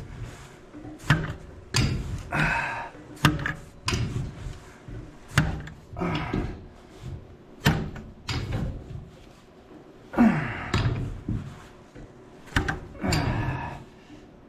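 Steel pipe wrench and threaded gas pipe fittings clunking sharply, about once a second, as a threaded joint is turned tight by hand, with short rasping sounds of the wrench and threads in between.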